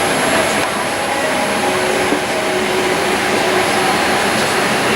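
Steady rush of air-conditioning in the cabin of a parked Boeing 787-8 during boarding, with a thin, steady high whine.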